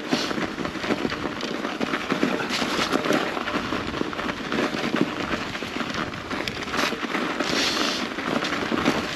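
Mountain bike rolling over rough, gravelly ground: a steady, dense crackle of tyres on stones and small rattles from the bike.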